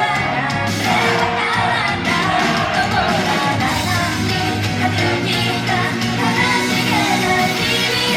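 J-pop idol group singing live over a pop backing track.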